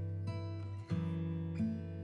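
Background music of plucked acoustic guitar chords, with a new chord or note sounding roughly every half second to second.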